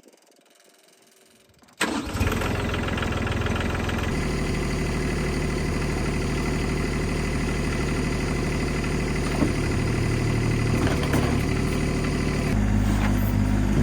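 An engine starts suddenly about two seconds in and then runs steadily, its note shifting about four seconds in and again near the end.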